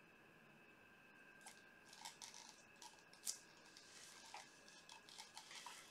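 Near silence with scattered faint clicks and taps, the sharpest a little past the middle, from plastic paint cups being handled while acrylic paint is poured and layered into a cup; a faint steady high tone hums underneath.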